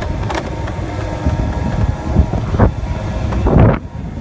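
Motor scooter running while riding, with a faint steady hum under wind noise on the microphone; the wind noise surges louder twice in the second half.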